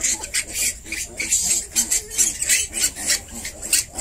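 Pigs in a pen: a nursing sow grunting low while her piglets suckle, with rapid, irregular rustling and scuffling from the litter.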